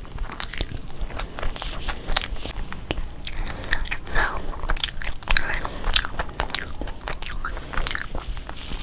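A person chewing a mouthful of burger, with many short, irregular mouth clicks and smacks.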